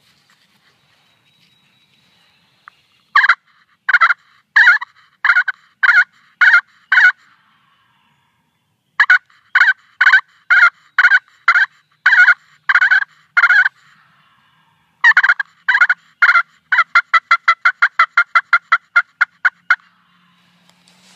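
Turkey call run as a series of hen yelps. There are three loud runs of short, evenly spaced notes, starting about three, nine and fifteen seconds in. The last run starts slowly and then speeds up into a fast string of about a dozen quick notes. This calling is meant to bring in a tom turkey.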